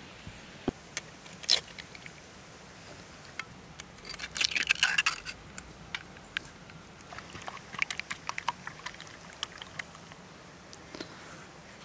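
Eggshells cracked against a knife blade and pulled apart over a wooden bowl: a dense run of crackly clicks about four seconds in, with scattered small taps and clicks before and after.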